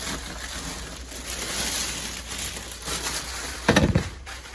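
Packaging rustling and crinkling as a turntable is unpacked, with one loud thump about three and a half seconds in.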